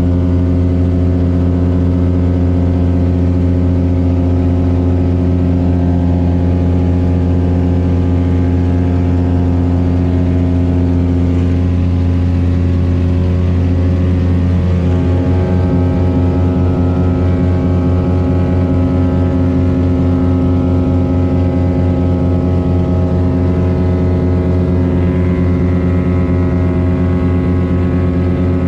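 Small propeller plane's wing-mounted piston engine at takeoff power, a loud steady drone heard from inside the cabin as the plane rolls down the runway and climbs away.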